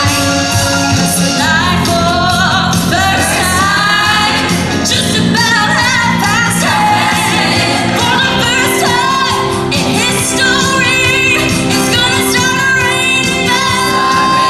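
Live rock/pop band playing a song with sung lead vocals, loud and continuous.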